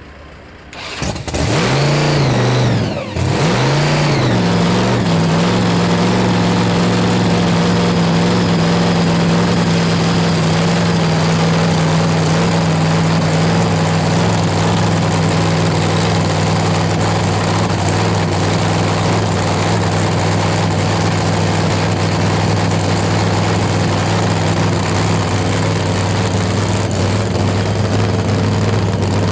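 Supercharged big-block V8 funny car engine firing up, its pitch swinging up and down twice in the first few seconds, then settling into a steady, loud idle.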